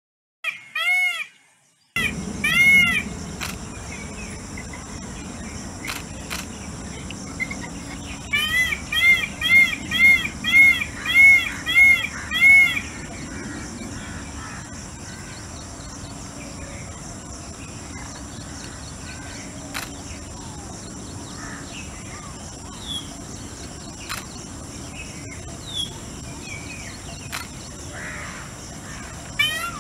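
Peacocks calling loudly. A few arched honking calls come in the first seconds, then a rapid series of about nine calls at roughly two a second around the middle, and one more call near the end. A steady high-pitched background buzz runs underneath.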